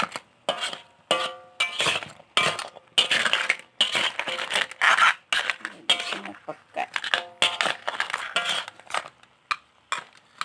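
A metal spatula scraping and clanking against a metal pot in irregular strokes as crabs are stirred in thick coconut-milk gravy, with a brief metallic ring from the pot about a second in.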